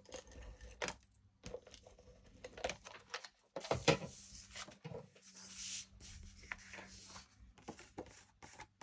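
Paper and card pieces handled on a craft table: rustling and rubbing of card stock, a short peeling or tearing sound and light taps as a die-cut piece is stuck onto a card. The sharpest tap comes about four seconds in.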